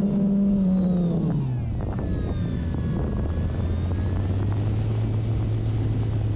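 Electric motor and propeller of an OMP Bighorn RC airplane, heard from on board. The drone drops in pitch about a second and a half in as the throttle comes back, then holds steady at a lower note, with air rushing past.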